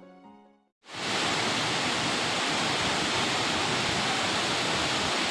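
Closing notes of music fade out; then, about a second in, a steady, even rushing noise of outdoor background sound starts and holds unchanged.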